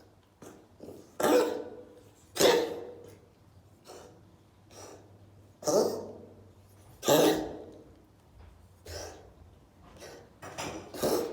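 A bout of coughing: single coughs every second or two, the four loudest in the first two-thirds, with fainter ones between and a quick cluster of smaller coughs near the end.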